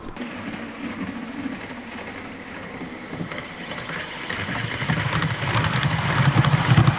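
Model train running past on the layout's track: its motor hums and its wheels click rapidly over the rail joints. It grows louder in the second half as the train comes close by.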